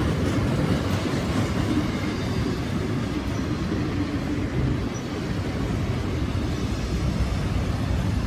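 BNSF freight train passing close by, a loud steady noise of its wheels running on the rails.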